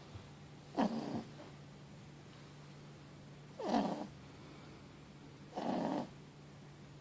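A Boston terrier–French bulldog mix puppy, four months old, snoring loudly in its sleep: three short snores, two to three seconds apart.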